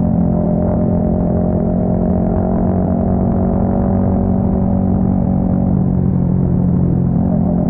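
Yamaha XSR 155's single-cylinder engine running through an aftermarket full exhaust system, holding a steady engine speed with a constant, even exhaust note.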